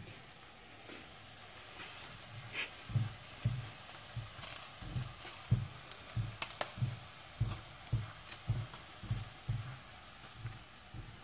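Diced vegetables frying in a non-stick pan, with a faint sizzle, while a plastic slotted spatula stirs and pushes them around, making a steady run of soft knocks against the pan at about two a second.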